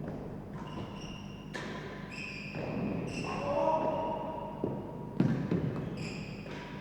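Real tennis rally: the hard ball struck by rackets and thudding off the court's walls and floor, several hits a second or so apart, the loudest about five seconds in. Short high squeaks come between the hits.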